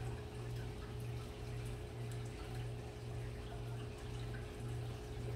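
A person drinking from a plastic bottle, swallowing in repeated gulps, over a low steady hum.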